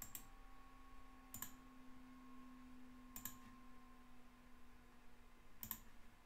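Four faint computer mouse clicks, a second or two apart, over a faint steady hum.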